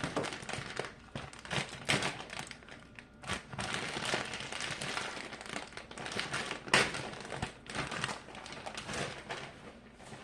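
Plastic bag of shredded cheddar cheese crinkling and rustling as the cheese is shaken out of it, in a steady run of irregular crackles with one sharper crackle about two-thirds of the way through.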